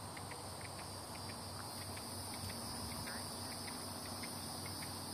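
Insects chirping: a steady high-pitched drone with short chirps repeating a few times a second.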